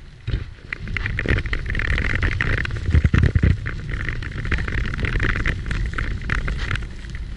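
Footsteps crunching on a gravel path, irregular and closely spaced, over a low rumble of wind on the microphone that swells about three seconds in.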